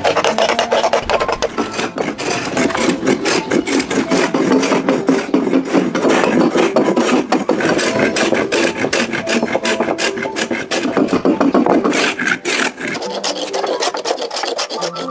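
Hand tools scraping and shaving the fibrous wood of a palm trunk being hollowed into a boat, in rapid, repeated rasping strokes.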